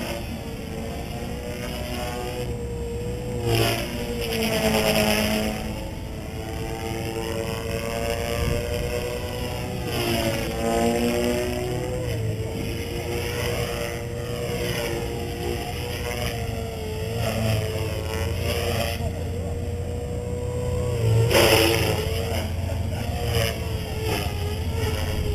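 Electric 450-size RC helicopter's motor and rotor whine, holding a fairly steady pitch while it flies overhead. It grows louder three times as the helicopter swoops closer, about four, ten and twenty-one seconds in.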